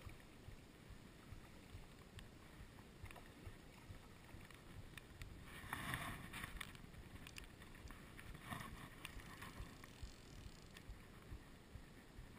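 Faint wind on the microphone, broken by a splash about six seconds in and a smaller one about two and a half seconds later: a hooked brown trout thrashing at the surface while being played on a fly rod.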